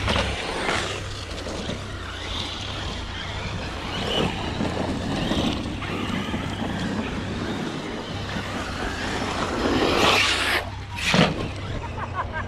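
Electric RC trucks running on a dirt track, with wind rumbling on the microphone. A louder rush of noise comes about ten seconds in, then a sharp knock a second later.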